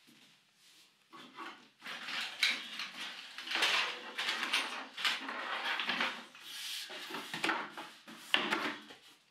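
A hand rummaging among objects on a wooden shelf unit: irregular rattles, scrapes and knocks, with one sharp knock near the end.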